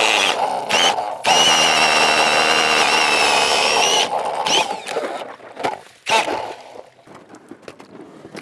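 Power ice auger drilling a hole through thin lake ice: the motor starts suddenly and runs with a steady whine for about four seconds, with a brief dip near the first second, then gives two short bursts as the hole is cleared.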